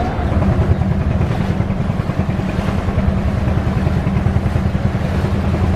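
A boat's engine running with a steady low drone, under a constant hiss of water and wind.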